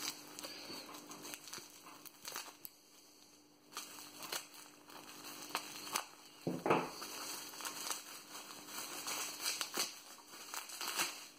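Bubble wrap and tape being pulled off a small package by hand: irregular crinkling and crackling rustles, with a brief lull about three seconds in and a louder flurry of handling near the middle.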